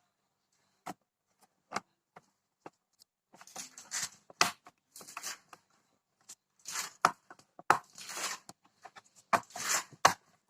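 Hand-handling noise: a series of sharp clicks and knocks with stretches of rustling and scraping, as small hard parts are worked by hand.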